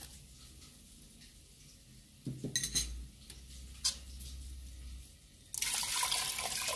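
A metal spoon clinks and scrapes against a stainless steel pot and a small spice dish, with a few sharp knocks. About five and a half seconds in, a glass of water is poured into the pot, a loud, steady rush of noise.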